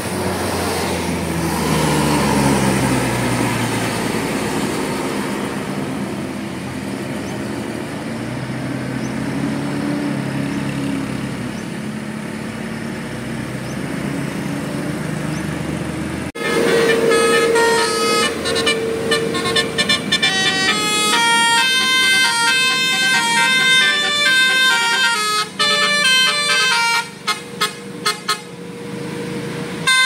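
A bus engine pulling up a hill and passing, its pitch sinking and rising as it goes by. About halfway in, after a sudden cut, a Basuri coach's 'telolet' multi-tone horn plays a fast melody of changing notes, opening on one long held note, with short breaks near the end.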